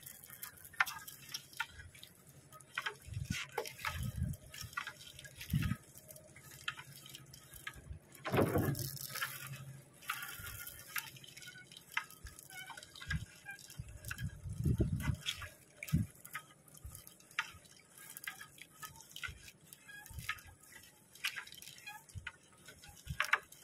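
Seawater dripping and splashing from a wet gill net as it is hauled hand over hand into a boat, with irregular small clicks and rustles of the net. Twice there is a louder dull thump.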